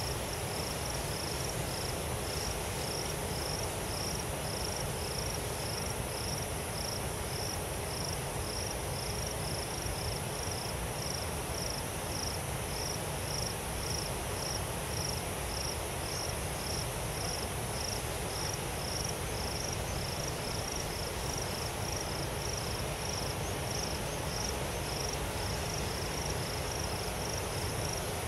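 An insect chirping in a steady rhythm, a little over two short high-pitched chirps a second, over a steady low background rumble.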